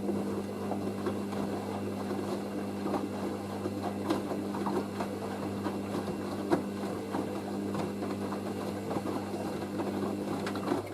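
Hoover AAA160 Whisper 1600 washing machine emptying ahead of its intermediate spin. A steady electric hum runs with many light, irregular clicks and rattles, and the hum stops near the end.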